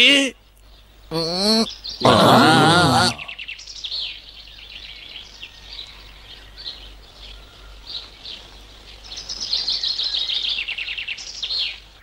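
Cartoon forest ambience of high chirps and trills that swell louder near the end. About two seconds in there is a loud wavering cry lasting about a second.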